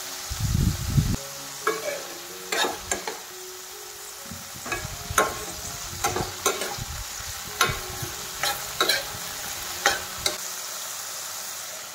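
Long beans frying in mustard oil in a steel kadai, sizzling steadily, while a steel ladle stirs them with repeated sharp scrapes and clinks against the pan. A dull low thump sounds in the first second.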